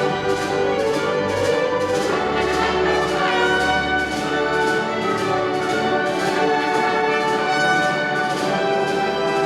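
Orchestra playing with the brass section to the fore, held notes over a steady beat of about two strokes a second.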